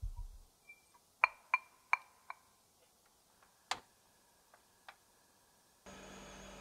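A wire whisk tapped four times against the rim of a glass bowl, each tap a sharp click that rings briefly, followed by a single sharper click. Near the end a steady hiss with a low hum sets in from the gas hob burner under the pan.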